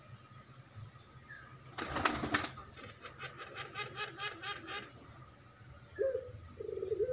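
Caged puter (Barbary) doves. About two seconds in there is a brief loud rustling burst, followed by a quick run of repeated gurgling notes. Near the end a coo is held long and level on one pitch.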